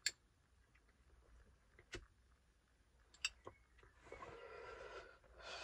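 Near silence with a few faint clicks, then a person's breath drawn on a cigarette about four seconds in and a second, shorter breath near the end as the smoke is let out.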